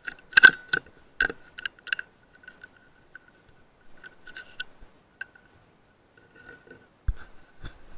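A quick run of sharp clicks and knocks from the air-rifle and night-vision setup, the loudest about half a second in, then scattered fainter clicks and two low thumps near the end, over a faint steady electronic whine.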